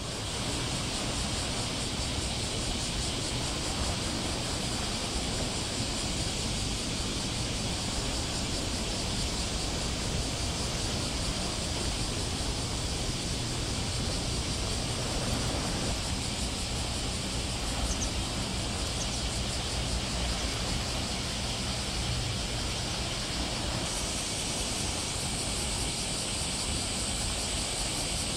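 Steady outdoor ambience by the water: a low rumble with a high hissing band over it, which brightens about 24 seconds in.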